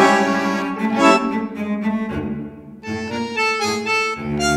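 Instrumental background music with held, changing notes. It dips briefly a little past two seconds in, then a new phrase starts.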